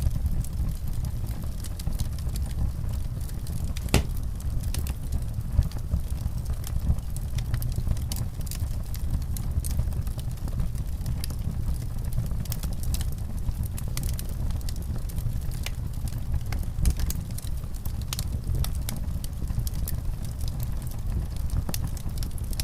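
Wood fire crackling in a fireplace: frequent irregular sharp pops and snaps over a steady low rumble.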